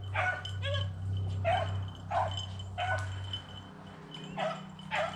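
Beagles baying on a rabbit's trail: about eight separate pitched barks and bays at an uneven pace, over a steady low hum.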